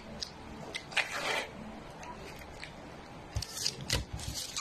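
Foil dog-food pouches rustling and rubbing against each other as they are handled on a table: a rustle about a second in and another past three seconds, with a few light knocks near the end.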